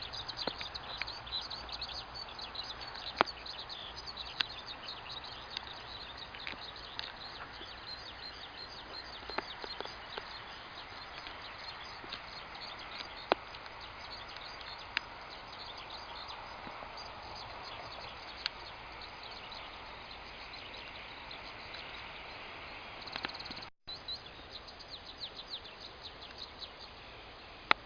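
Eurasian skylark singing its long, unbroken flight song, a fast run of high chirps and trills, with a few sharp clicks scattered through.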